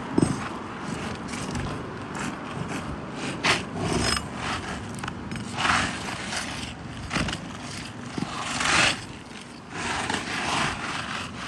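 Roof repair work: irregular scraping and rustling with a few sharp knocks, the loudest knock about a quarter-second in.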